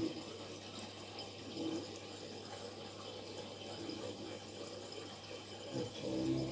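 Aquarium water running and bubbling steadily, from the tank's aeration and filtration, over a low steady hum.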